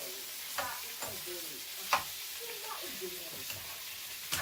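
Shrimp frying in butter in a pan, with a steady sizzle, and a utensil knocking against the pan three times as it is stirred. Faint voices play underneath.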